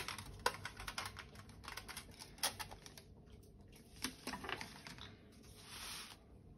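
Metal watercolour paint tin being handled: a sharp click, then scattered clicks and light metal clatter as the tin's lid is opened and the tin is set down on cardboard. A brief sliding rustle near the end as a paper pad is pushed across the surface.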